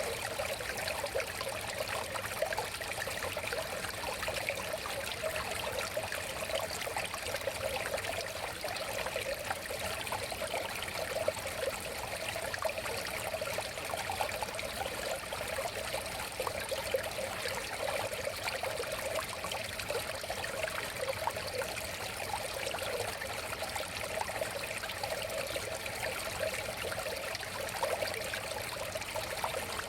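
River water flowing steadily over stones, a continuous babbling and trickling rush.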